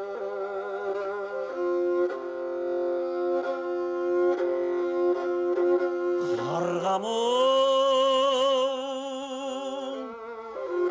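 Kobyz, the Kazakh bowed fiddle with two horsehair strings, playing long sustained droning notes. About six seconds in it slides upward into a high held note with a wavering vibrato, which drops away near the end.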